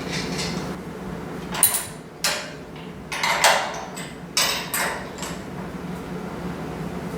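Several short clanks and scrapes, like metal parts being handled and knocked together, the loudest about a second and a half and three and a half seconds in, over a steady background hum.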